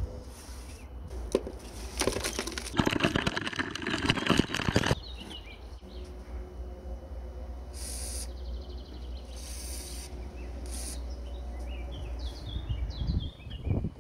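Flakes of rust scale crunching and scraping as they are broken out of a heavily rusted stove body, densest from about two to five seconds in. Then an aerosol spray can hisses in three short bursts.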